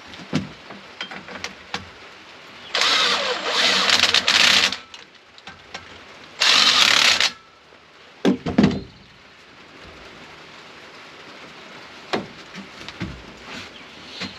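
Two loud bursts of a mechanical, power-tool-like whirring noise, the first about two seconds long and the second about one second, followed by a few metal clunks.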